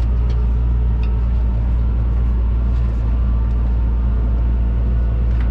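Fendt 936 tractor's six-cylinder diesel engine running steadily, pulling the lowered seed drill into the start of a sowing pass.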